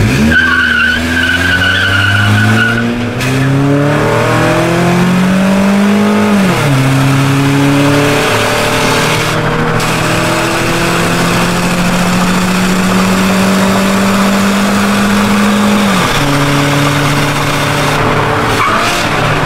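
Car engine accelerating hard from a standing start and pulling through the gears, heard from inside the cabin. The pitch climbs steadily and drops at two upshifts, about six and a half seconds in and again about sixteen seconds in. A thin high squeal runs over the first few seconds.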